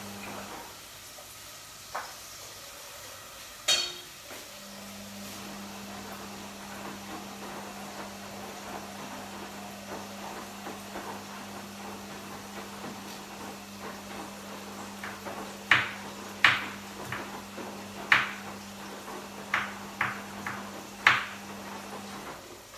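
Kitchenware knocking and clinking on the counter: two sharp knocks in the first few seconds, then a run of about eight irregular knocks near the end, over a steady low hum.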